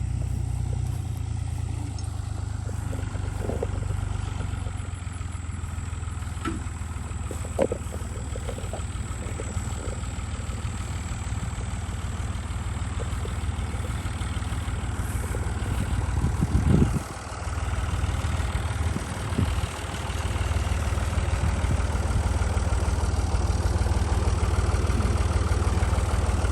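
Farm tractor engine running steadily at low speed, with a brief louder moment about two-thirds of the way through.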